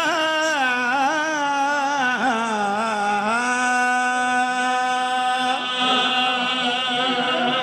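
A man's solo voice chanting a line of a Punjabi qasida (devotional poem) in a drawn-out melodic style, with no instruments. His pitch wavers in ornaments at first, then he holds one long note for about two seconds and lets it fade.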